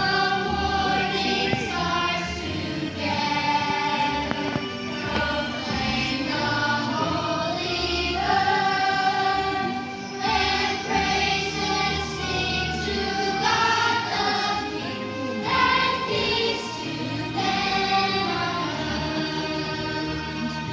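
A choir singing a song with musical accompaniment, with long held notes.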